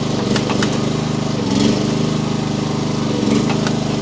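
Gas engine of a mini-excavator running steadily under hydraulic work while the log grapple is operated, with a few sharp clicks and knocks and a brief louder surge about one and a half seconds in.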